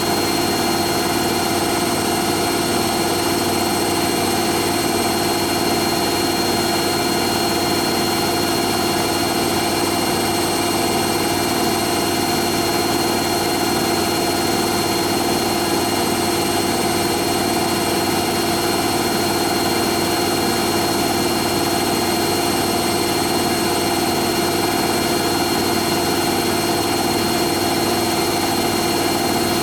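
Hoover Nextra HNL71463D washing machine in its final spin, the drum and motor holding a steady high speed with a constant hum and whine.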